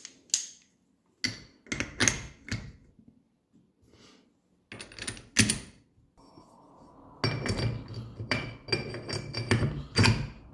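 Ford Model T differential gears and case parts being fitted together by hand: a string of metal clicks and clunks as the parts are set into the differential case, with a short pause about halfway through.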